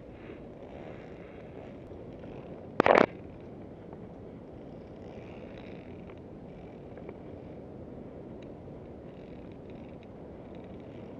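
Steady low rustling rumble of a body-worn camera rubbing against the climber's clothing and gear while climbing on a ropes course, with one short, loud clack about three seconds in and a few faint ticks later.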